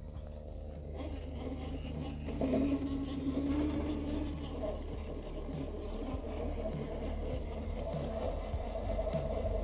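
Axial SCX10 II rock crawler's Hobbywing Fusion 1200kv brushless motor whining at crawl speed, its pitch higher in the second half, while the tyres scrape and rub over rock.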